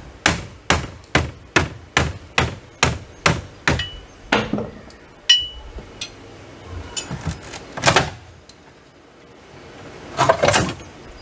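Hammer knocking out old wall sheathing and framing: a rapid run of blows, about two to three a second, for the first four seconds, some with a short metallic ring. Then come a few single strikes, a loud crack near eight seconds, and a board cracking as it is pulled loose about ten seconds in.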